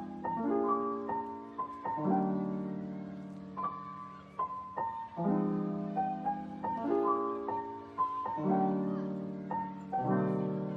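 Soft background piano music: gentle chords struck in a slow repeating pattern, with the notes left ringing.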